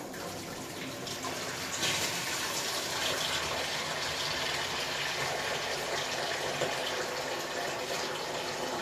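Water running from a Moen Genta faucet with its flow restrictor removed, pouring into a bucket. The flow strengthens about two seconds in and then runs steadily, at about twice the restricted rate.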